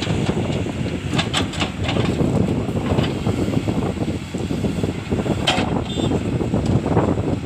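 JCB 3DX backhoe loader's diesel engine running steadily, with a few sharp knocks from the working machine, the loudest about five and a half seconds in.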